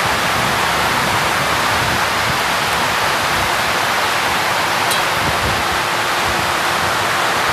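Steady hiss of a pan of thick paneer butter masala gravy cooking on the stove as it is stirred.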